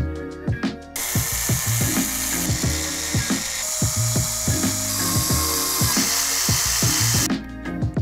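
A loud, steady mechanical noise comes in about a second in and stops shortly before the end, over background music with a steady beat.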